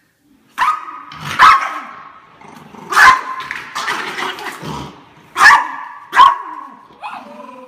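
Small Yorkshire terrier barking at a broom, about five sharp, loud barks spread out with rough low noise between them.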